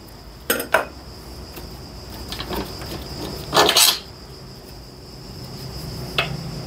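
The old rear shock absorber being unbolted and pulled off a Kawasaki ZX130's frame: a couple of short clicks, a louder scraping rattle about three and a half seconds in, and another click near the end.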